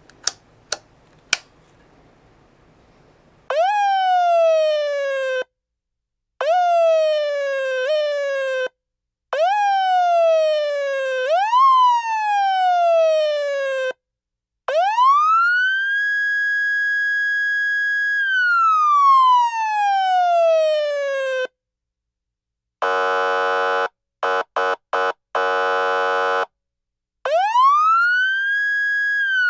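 Federal Signal Touchmaster Delta electronic siren worked by hand through its speaker. Three sharp switch clicks come first, then short manual-tone yelps that jump up and glide down. A long manual wind-up follows, held at the top pitch and then winding down. Next come buzzing horn-tone blasts, one long, several short and one long, and near the end another wind-up to the top pitch.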